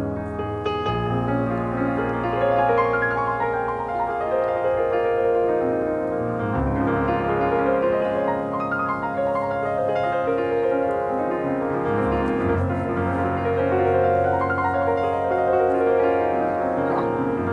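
Soft relaxing piano music, sustained chords with a slow melody above.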